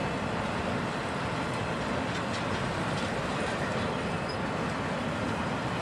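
Freight train cars rolling past at speed: a steady rumble of steel wheels on the rails, with a few faint clicks scattered through.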